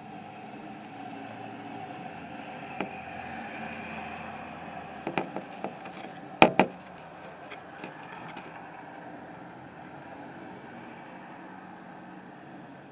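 Steady hum of street traffic. About five seconds in comes a cluster of sharp clicks and knocks, the loudest a double knock about a second later.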